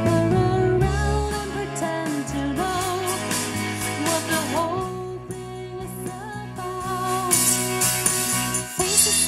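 A song with a singer and a band, played through a pair of small wooden bookshelf speakers driven by a TDA8946 stereo amplifier board while its bass, treble and volume controls are turned. The deep bass is heavy for the first two seconds or so and then thins, and the sound turns brighter near the end.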